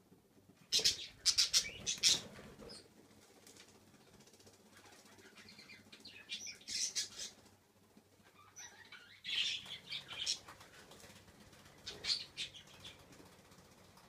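A pet budgie scuffling on a hand: four short bouts of wing fluttering and rustling a few seconds apart, the first the loudest.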